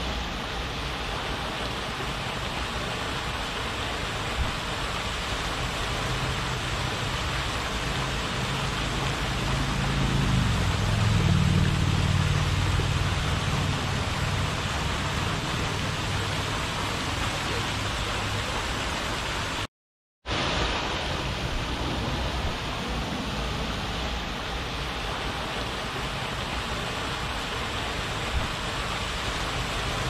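Lake fountain jets spraying and splashing back onto the water: a steady, even rush of falling water. A low motor hum swells up about ten seconds in and fades again, and the sound drops out completely for a moment about two-thirds of the way through.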